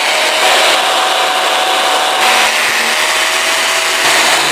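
Handheld electric reciprocating saw, used as a bone saw, running steadily as its blade cuts through the vertebrae of a pork rib cage.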